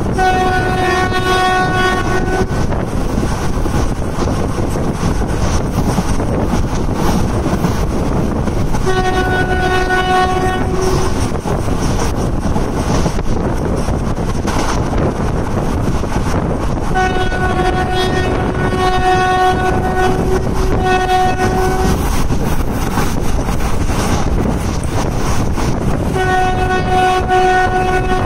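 Indian Railways locomotive horn sounding long single-note blasts, five in all, two of them close together in the middle, over the steady rumble and wind noise of a train running at speed.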